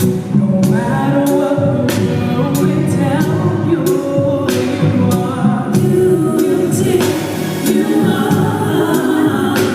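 Gospel music: a choir singing over repeated drum hits.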